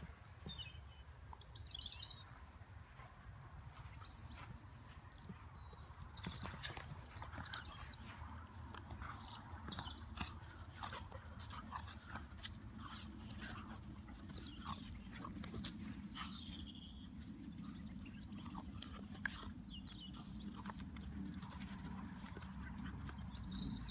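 Deerhound puppies playing: scattered scuffles and clicks, with a few short high cries.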